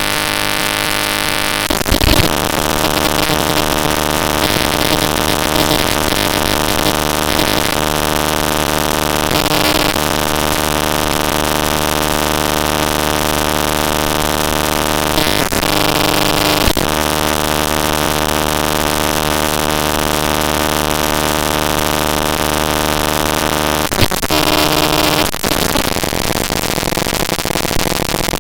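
Network packet-capture text from tshark played back raw as float audio samples: a loud, dense noise with many steady buzzing tones stacked over a hiss. The pattern switches abruptly a few times, about two seconds in, around fifteen and seventeen seconds in, and about twenty-four seconds in.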